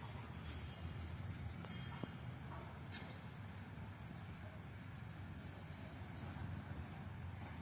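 Quiet outdoor ambience: a low steady rumble, and twice a high, rapid chirping trill lasting about a second and a half. A single soft click about three seconds in.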